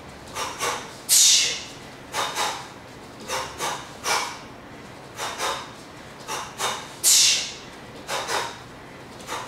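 A woman exhales sharply with each punch of a jab-cross combination while shadowboxing. The breaths come as short hissing puffs, mostly in pairs about a second apart, with two longer hisses about a second in and near seven seconds.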